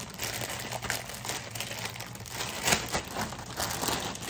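Clear plastic packaging crinkling and crackling as it is pulled open and handled by hand, with a sharper crackle about two and a half seconds in.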